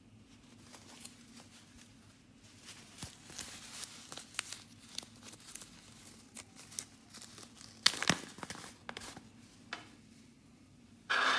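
Hands squishing and working a batch of no-glue water slime: irregular wet crackles and clicks that grow busier after a couple of seconds, with a sharp pop about eight seconds in and a short louder squelch right at the end.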